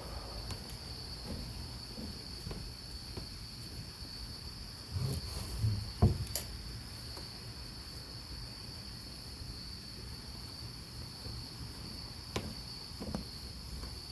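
Crickets trilling in a steady, continuous high chorus over a low background hum. A few short knocks and thumps come about five to six and a half seconds in, and a couple more near the end.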